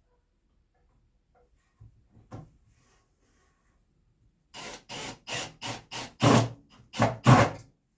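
A power drill driving pocket-hole screws into wood, run in a quick series of short trigger bursts that get louder near the end. A couple of light knocks come about two seconds in.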